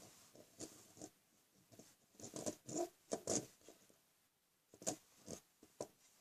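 Small plastic pieces being handled: irregular light clicks and scrapes, in a busy cluster about two to three and a half seconds in and a few more near the end.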